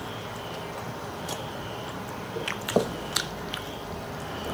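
People chewing momos and chowmein, with a few sharp clicks of a spoon against a plate partway through.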